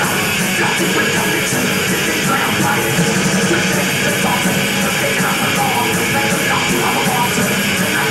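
A thrash metal band playing live: distorted electric guitars, bass and drums in one dense, unbroken wall of sound, recorded from within the audience.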